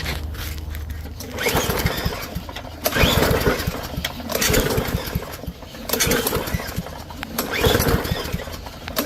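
Powermore engine on a Yard Machines push mower being pull-started: about five recoil-starter pulls, roughly one every second and a half, each turning the engine over without it catching. It is not yet getting fuel through the carburetor.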